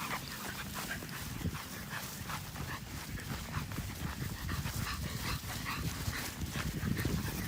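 Dogs close by, making short, quick sounds several times a second over a low rumble, with no real barking.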